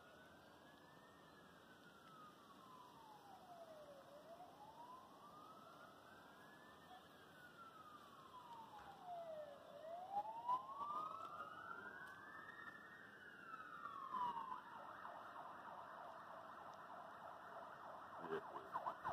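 Fire engine siren, faint with distance, coming closer. It wails in slow rises and falls of a few seconds each, then switches to a fast yelp about fifteen seconds in.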